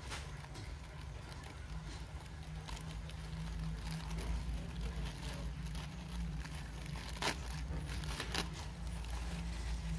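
Clear plastic packaging bag crinkling and crackling as hands pull it open, with two sharper crackles near the end, over a steady low rumble.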